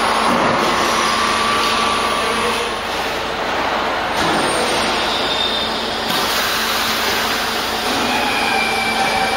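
Machinery of a steel coil packing line running: steady factory noise of conveyors and handling equipment with a constant low hum. A higher motor whine comes in near the end.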